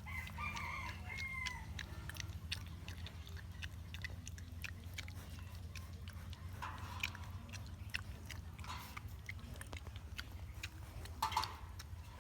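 Porcupines chewing leaves: a steady run of short, crisp clicks and crunches. A brief high call comes near the start, and a low steady hum runs underneath.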